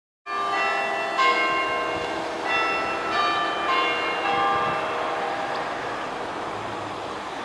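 Church bells ringing, struck one after another at about two strokes a second, each ringing on over the next. The strokes stop about two-thirds of the way through and the ringing fades.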